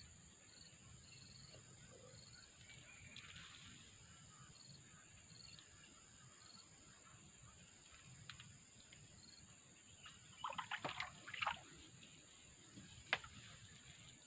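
Steady high drone of insects with faint repeated cricket chirps, then a quick run of small water splashes and knocks about ten seconds in and a single sharp click near the end.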